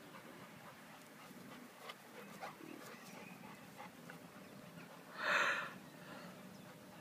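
American Staffordshire Terrier panting, with small scattered clicks and rustles. About five seconds in comes a short, loud rush of noise.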